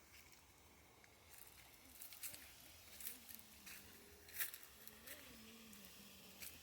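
Near silence: faint outdoor ambience with a few scattered soft clicks and a faint low wavering tone.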